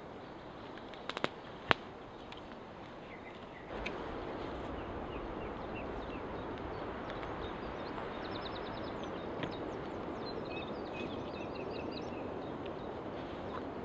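Small birds chirping and trilling in short high phrases over a steady rushing background. Two sharp clicks sound about a second in, and the background noise steps up louder just before the four-second mark.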